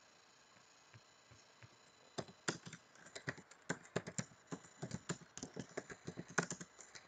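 Computer keyboard typing: a few scattered clicks, then from about two seconds in a quick, irregular run of keystrokes, several a second, as commands are typed into a router's command line.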